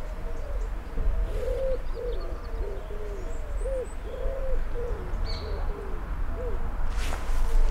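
Doves cooing, a run of short arching coos repeating a few times a second, over a steady low rumble. A small bird chirps briefly about five seconds in, and there is a short rustle near the end.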